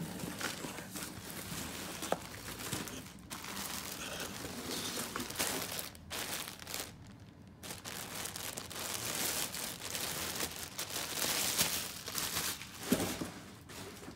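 Clear plastic bag crinkling and rustling as it is handled and pulled from a cardboard box, in several stretches with short pauses between them.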